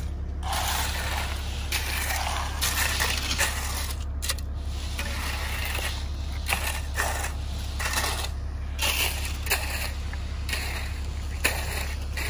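Shovel and screed board working fresh wet concrete: a run of irregular scraping strokes as the concrete is shoveled into place and the screed is dragged across it to level it.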